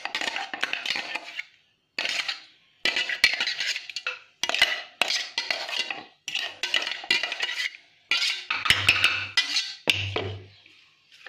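A metal utensil scrapes and clinks against the inside of a stainless-steel mixer-grinder jar in quick bursts with short pauses, scraping out thick ground eggplant paste.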